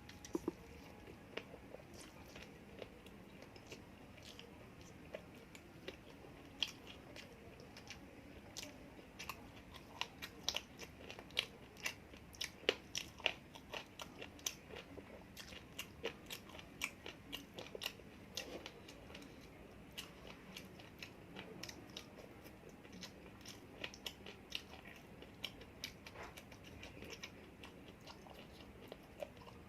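Close-up eating sounds: a person chewing and biting food with many short crisp crunches and clicks, thickest in the middle.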